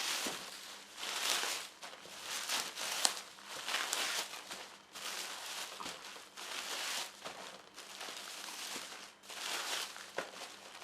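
Packaging crinkling and rustling in irregular bursts, one every second or two, as it is handled and opened.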